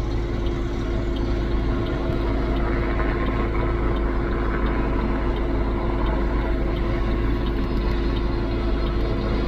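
Large cargo helicopter hovering with a slung load, its rotors and turbine engines making a steady drone with a deep rumble and a constant hum.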